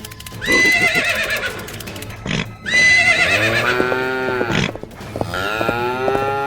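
Three long, pitched animal-like cries in a row, each with a wavering, arching pitch and lasting one and a half to two seconds.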